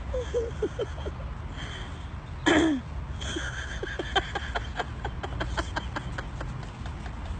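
Wind rumbling steadily on the microphone. About two and a half seconds in there is a short, loud burst of sound that falls in pitch, and from about four to six and a half seconds a rapid run of short clicks.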